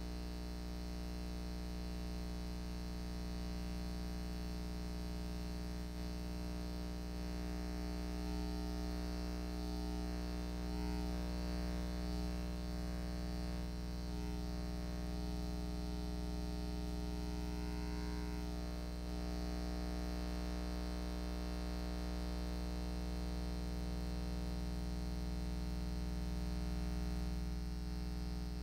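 Steady electrical hum: a constant low buzz with many evenly spaced overtones that does not change in level.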